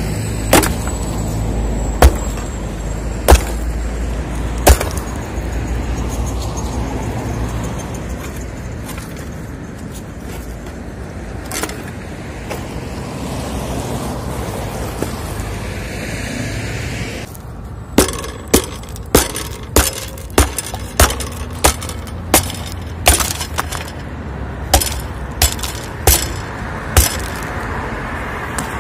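Matrix sledgehammer striking a reinforced concrete slab: a few blows a second or more apart at first, then a quick regular run of about two blows a second in the second half. A steady low rumble of passing road traffic runs underneath.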